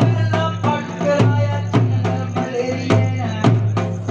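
Devotional folk music: a drum beating a steady rhythm of about three strokes a second over a sustained low drone, with a melody line above.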